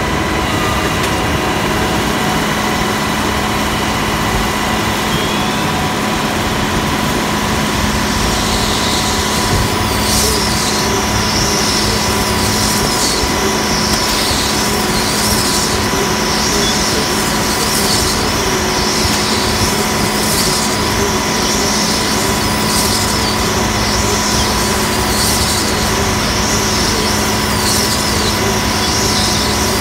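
Orkel MP2000-X compactor's machinery running with a steady drone and whine while it wraps a silage bale. From about eight seconds in, the stretch film crackles in repeated paired bursts, about every two and a half seconds, as it is pulled off the film dispensers onto the turning bale.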